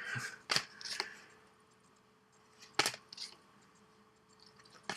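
Trading cards being flipped through by hand, giving a handful of short, sharp flicks, with a quiet gap of about two seconds in the middle.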